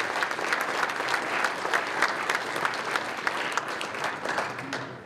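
Audience applauding, a dense run of many hands clapping that dies away at the very end.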